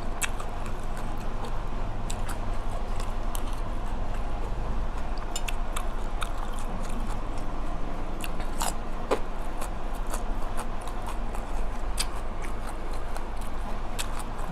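A person chewing and eating close to the microphone, with scattered short mouth clicks and smacks over a steady low hum.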